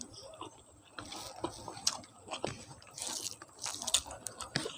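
A person chewing food close to the microphone: irregular small clicks and crackles of mouth sounds, quieter for the first second and busier after.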